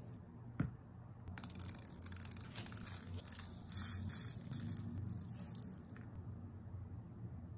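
Small beads rattling and clattering against a clear resin shaker keychain frame as it is filled. The rattles come in quick irregular runs for about four seconds, after a single click near the start.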